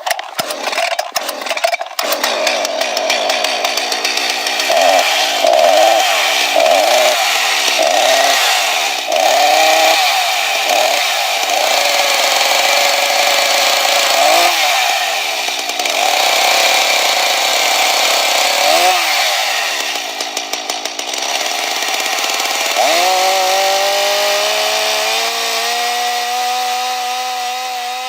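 Chainsaw engine: a burst of rapid rattling at first, then revving up and down again and again with brief dips in pitch. About 23 s in it settles into a steadier, lower running note that slowly climbs.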